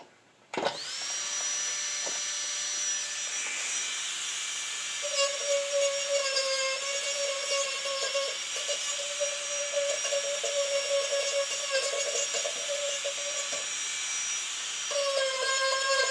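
Marathon micro motor handpiece switched on about half a second in, spinning up at once to a steady high whine. It runs with a diamond inverted-cone burr smoothing the rough edges of carved wood, with a lower grinding tone through the middle of the run.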